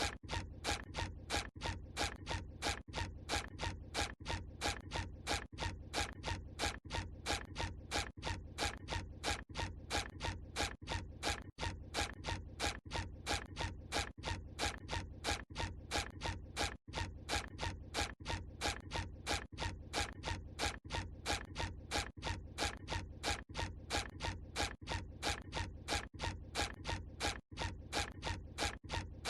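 The SpongeBob SquarePants walking sound effect: cartoon footsteps repeating evenly, about three steps a second, looped.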